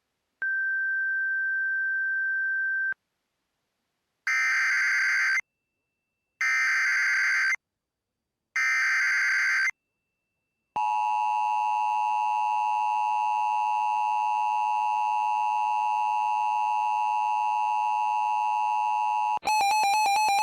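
Emergency Alert System tones for a special marine warning, heard over a poor-quality relay. First a steady single tone lasts about two and a half seconds. Then come the three one-second bursts of the SAME data header, then the attention signal held steady for about eight and a half seconds; near the end it cuts off and a louder, rapidly pulsing sound begins.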